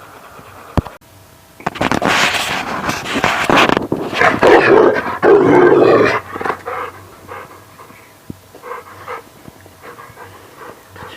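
A dog making loud sounds for about four seconds, starting nearly two seconds in, followed by a few quieter, scattered sounds.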